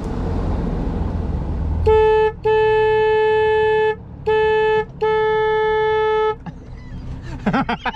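Boat's electric horn sounding four blasts in a short-long-short-long pattern, one steady single pitch, after a couple of seconds of low engine and wind rumble.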